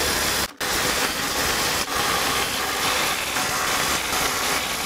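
Brushless cordless impact drivers hammering steadily under load as they drive hex-head bolts with a socket, with a short break about half a second in.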